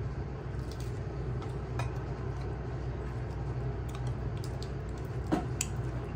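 Scattered light cracks and clicks of crisp gol gappa (pani puri) shells being broken open and bitten, over a steady low hum. The sharpest cracks come a little past five seconds in.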